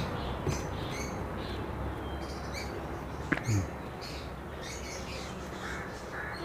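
Birds chirping in short, scattered calls over a steady low background noise, with one sharp click about three seconds in.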